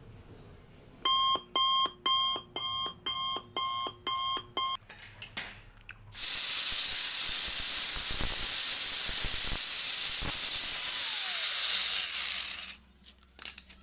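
Starting about a second in, a run of eight short electronic beeps at an even pace, all at the same pitch. From about six seconds in, an angle grinder's abrasive disc runs against a solid steel square bar for about six seconds as a steady grinding hiss. The hiss cuts off near the end.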